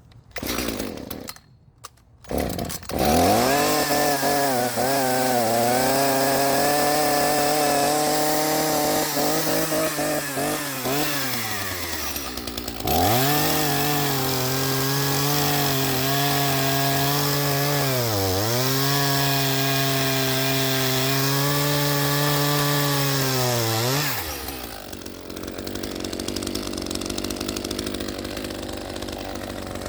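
Two-stroke chainsaw catching after two short starting bursts, then running at high revs. Its pitch sags twice and recovers as it bogs under load, testing a freshly sharpened chain, before it falls back to a quieter, lower running near the end.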